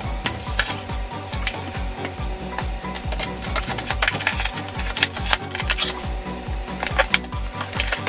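Scraping and scrubbing on a grimy tile floor with a hand tool: many short scratchy strokes, over a steady low pulse of about four a second.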